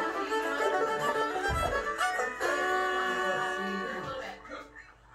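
Fiddle music from a cartoon soundtrack playing through a laptop speaker, with a long held chord before it fades away about four seconds in.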